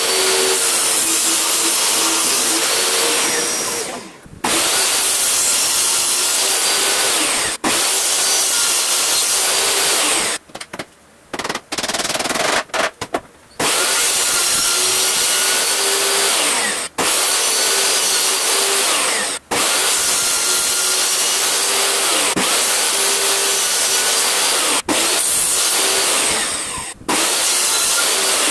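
Table saw running and cutting wooden boards: a steady motor hum under loud blade-cutting noise. It drops out abruptly several times and comes back, with a longer broken stretch about ten seconds in.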